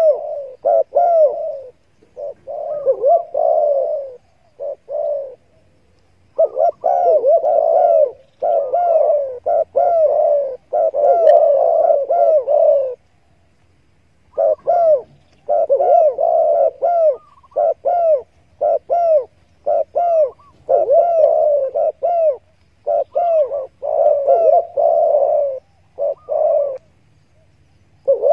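Spotted doves cooing: many repeated, arching coos overlap in dense runs, broken by pauses of about a second.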